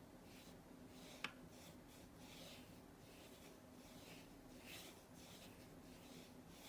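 Faint, soft swishes of a wet watercolour brush sweeping back and forth across watercolour paper, one stroke about every half second. There is a single sharp click about a second in.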